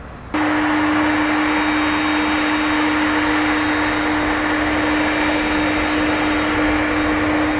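Airbus A300-600ST Beluga's General Electric CF6 turbofan engines running steadily at low taxi power: a loud, even rush with a steady hum beneath it. The sound cuts in suddenly a fraction of a second in.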